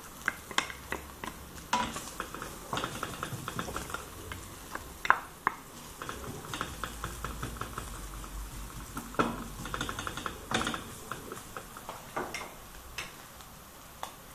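Wooden spatula stirring and scraping ground pork and freshly added minced garlic around a stainless steel frying pan, with irregular knocks against the pan, over a light sizzle of hot oil.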